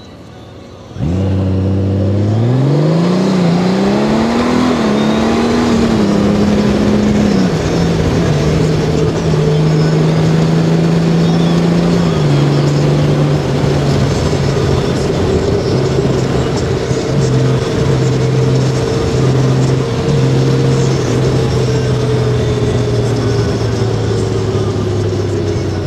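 Honda Gold Wing's 1,833 cc flat-six engine pulling away from a stop, loud and sudden about a second in. Its pitch climbs and dips back with each automatic upshift of the dual-clutch transmission, then settles into a steady cruise with wind rushing over the microphone.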